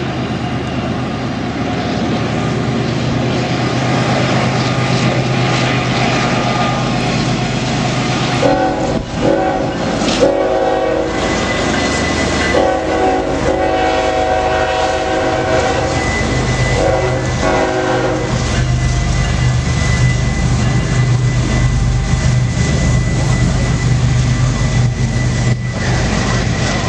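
Three Norfolk Southern diesel locomotives hauling a train, with a steady low engine drone throughout. Their multi-chime air horn sounds in several blasts from about eight to eighteen seconds in, and a thin steady high tone holds through the second half.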